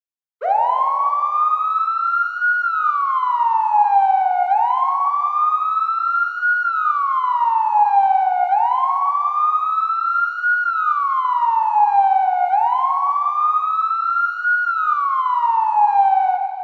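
Wailing siren, its pitch sliding slowly up and down in a steady cycle of about four seconds, four times over. It starts suddenly out of silence about half a second in and fades out at the end.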